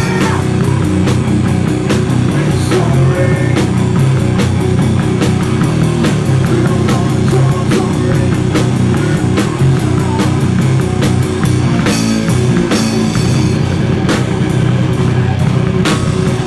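Drum kit played in a steady rock beat over sustained guitar and bass, loud throughout, with heavier crashes about twelve seconds in and near the end.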